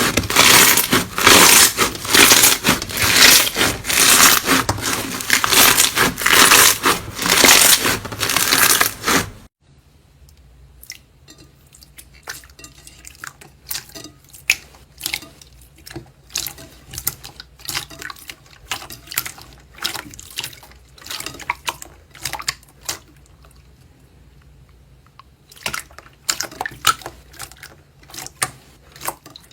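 Slime being squished and worked by hand, with dense crackling and popping. The sound cuts off suddenly about nine seconds in, and sparser, quieter squishes and clicks follow.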